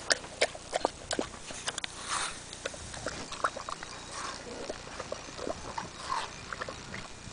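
A dog chewing and crunching watermelon, with irregular wet crunches, clicks and smacks several times a second.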